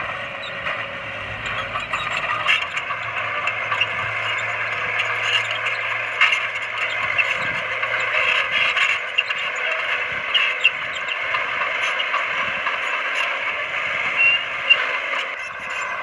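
Komatsu D20P crawler bulldozer working: steady engine noise with scattered clanks and clicks from the machine.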